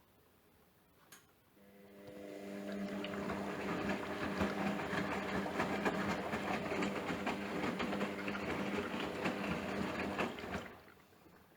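Hotpoint washing machine's drain pump starts up and runs with a steady hum over gurgling, crackling water for about nine seconds, then cuts off.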